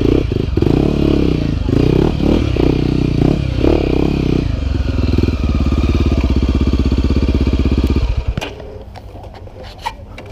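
Dirt bike engine close to the microphone, revving unevenly on and off the throttle, then running steadily at higher revs from about halfway. It drops away suddenly about eight seconds in, followed by a few light clicks.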